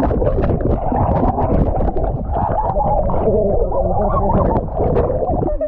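Loud, muffled churning and gurgling of pool water in a swimming pool as a swimmer struggles after a jump, with wavering tones over a heavy rumble, breaking off shortly before the end.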